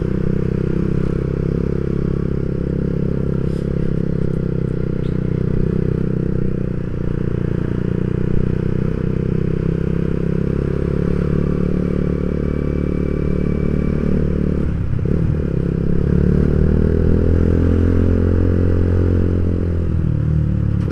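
Yamaha Vixion's single-cylinder four-stroke engine running steadily at moderate revs while riding in traffic. About fifteen seconds in the note breaks briefly, then rises and falls again.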